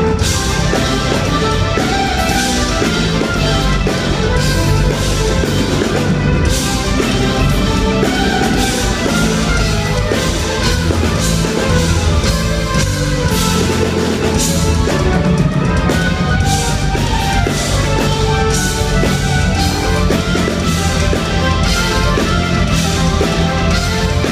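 Live progressive rock band playing loudly: drum kit, electric guitar, bass guitar and keyboards, heard through the amplified sound system of a concert hall on a hand-held iPhone's microphone.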